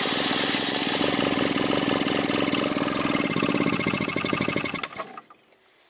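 2007 Piaggio MP3 scooter engine running briefly on carb cleaner sprayed into the intake, then slowing and dying about five seconds in. Running only on the carb cleaner points to a fuel-delivery fault, which the mechanic takes for a blocked carburettor.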